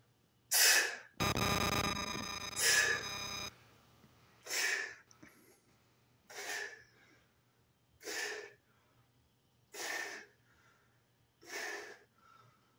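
A man breathing hard with the effort of resistance-band rows: a sharp breath about every two seconds, one per rep. A louder buzzing noise runs for about two seconds, starting about a second in.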